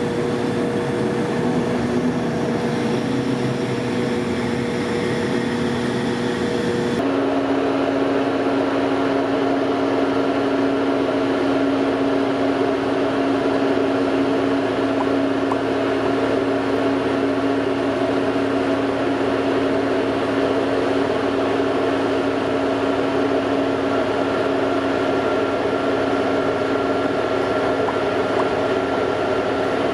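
Engine of a Liebherr LTM 1100-5.2 all-terrain crane running at a steady speed with a constant hum. About seven seconds in the sound changes abruptly to a slightly higher, steady tone that holds from then on.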